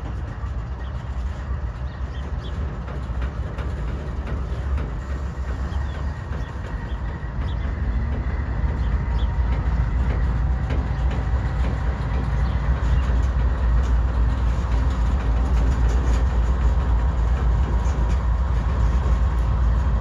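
Diesel-hauled freight train moving on the rails: a steady low rumble that grows louder about eight seconds in.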